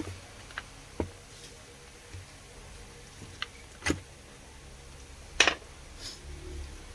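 Scattered clicks and knocks, about six in all, the loudest about five and a half seconds in: handling the drill's case and parts while taking it apart.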